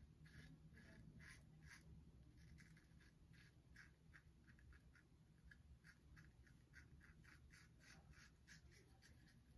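Shavette razor blade scraping through lathered beard stubble in short strokes, about two to three scratches a second, faint.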